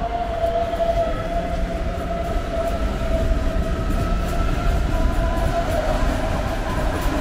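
Munich S-Bahn class 423 electric train running past the platform: the electric traction drive gives a steady whine over the low rumble and rattle of the wheels on the rails.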